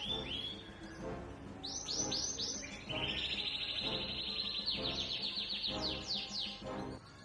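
Canary singing: fast rolling trills, a few quick rising notes about two seconds in, then a long trill from about three seconds that breaks into quick downward swoops near the end.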